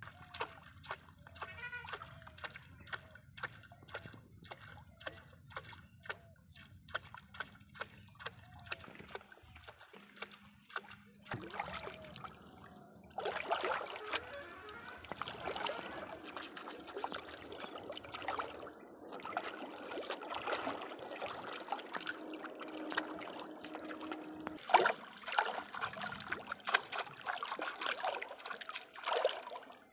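Water splashing in a shallow pond as a hooked fish thrashes at the surface on a hand line: short sharp splashes about twice a second at first, then louder, continuous splashing and sloshing from about halfway as feet wade through the water.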